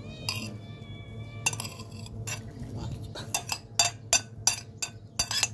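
A metal spoon scraping and clinking against a ceramic plate while scooping up leftover rice. The clinks are sparse at first, then come quickly, about three a second, through the second half.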